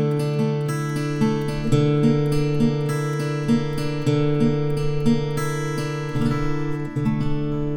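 Saga GS700 R acoustic guitar played, notes plucked in a steady pattern about twice a second over lower strings left ringing.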